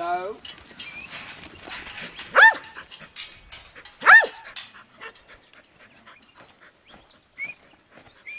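Working kelpie barking: two sharp, loud barks about two and a half and four seconds in, with a few weaker calls near the start and light knocks and clatter throughout.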